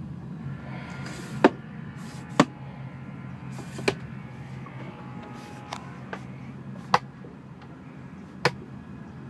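Cabin cupboard doors with push-button latches being opened and shut: about seven sharp clicks and knocks spread through, the first two loudest, over a steady low hum.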